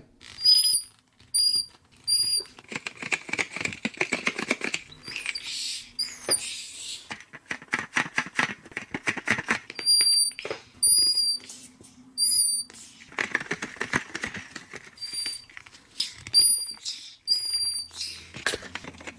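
A soft plastic Bubbleloons toy figure squeezed by hand to pump air through its nozzle into a small balloon. Each squeeze is a short rush of hissing air, and in between come groups of short high-pitched squeaks, two or three at a time, with light handling clicks.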